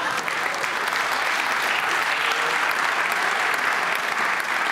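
Studio audience applauding steadily, with laughter, in response to a comedian's punchline.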